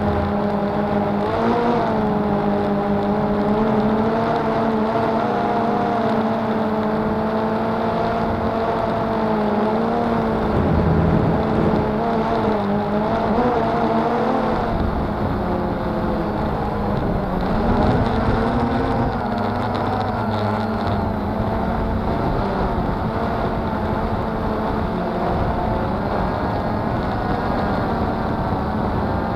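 Cheerson CX-20 quadcopter's four brushless motors and propellers whirring, heard from the camera on board; the pitch wavers up and down as the motors speed up and slow down to steer the craft.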